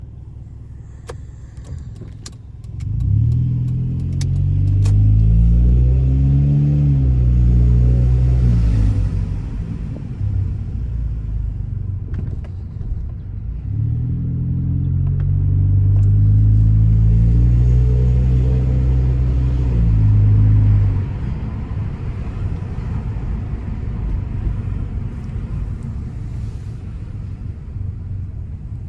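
Hyundai i30 running without a muffler, accelerating hard twice, the engine note climbing and stepping through the gears on each pull. Between and after the pulls there is a lower exhaust rumble, and a few sharp clicks near the start.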